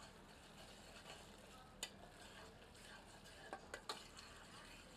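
Metal ladle stirring thick onion masala frying in oil in a stainless-steel pressure cooker: a faint sizzle, with a few light clinks of the ladle against the pot about two seconds in and again near four seconds.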